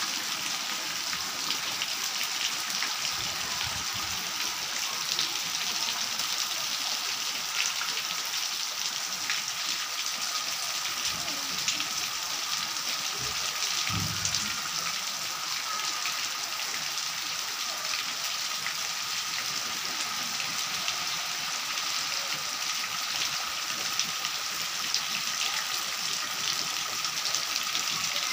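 Steady heavy rain falling on a muddy yard, with many individual drops pattering and water dripping from the edge of a roof. A few brief low thuds come about halfway through.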